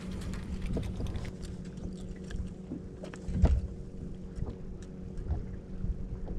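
A steady low motor hum, with scattered light clicks and knocks from a freshly landed bass being handled on the boat deck. One louder thump comes about three and a half seconds in.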